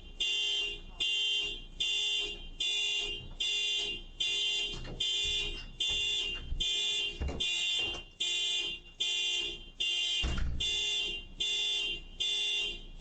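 Car alarm going off as the car is broken into: a high-pitched electronic alarm tone beeping in a fast, steady rhythm. A couple of dull low thumps sound under it, around the middle and a few seconds later.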